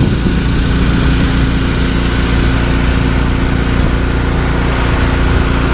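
A small engine running at a steady speed: a constant drone with an unchanging pitch and a low rumble beneath it.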